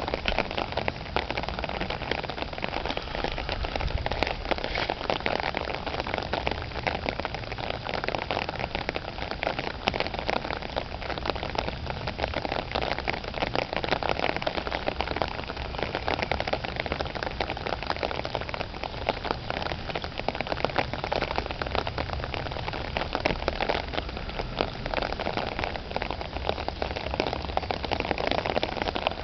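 Steady rain falling, a dense, even patter of many drops that keeps up without a break.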